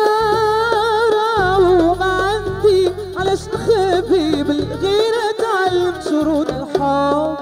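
A woman singing a long, ornamented melodic line with no clear words, over keyboard, violin and hand drums in a Moroccan popular song.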